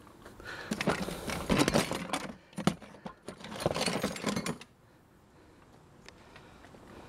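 Scrap electronics and small metal parts clattering and rattling together as a gloved hand rummages in a plastic tote and lifts out a circuit board. The sound comes in two bursts of rapid knocks, the first about two seconds long and the second about a second and a half.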